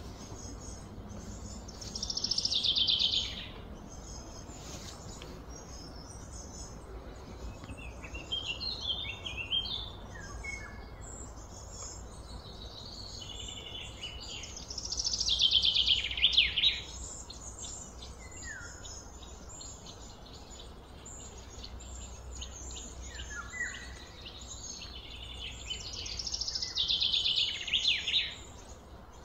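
A songbird sings a loud, fast trill that falls in pitch, three times about twelve seconds apart. Shorter chirps from other birds come in between, over a steady low hum.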